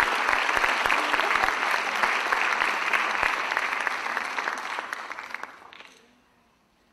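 Audience applauding, a dense clatter of many hands, which dies away between about four and six seconds in and leaves near silence.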